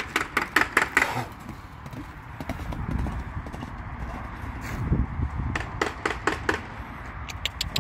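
Arabian horse's hoofbeats as it canters loose on a dirt arena: quick runs of sharp knocks in the first second and again later on, with a low rumble in the middle.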